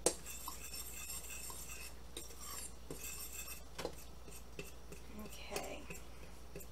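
A metal fork stirring a dry flour mixture in a mixing bowl, used in place of a whisk to break up lumps. It scrapes and clinks against the bowl irregularly, with a sharp tap right at the start.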